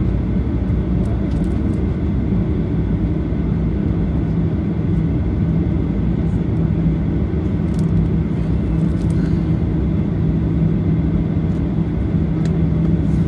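Cabin noise of a Boeing 737-800 taxiing, its CFM56-7B engines at idle: a steady hum over a low rumble, with a few faint ticks and rattles.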